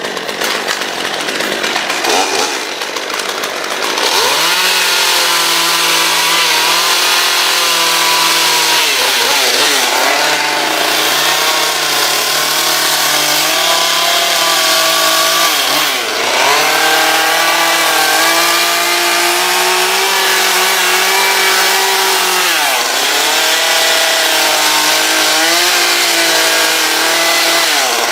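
Two-stroke gasoline chainsaw running at high speed while carving wood. It comes up to full speed about four seconds in, and its pitch sags briefly about four times as the chain bites into the wood.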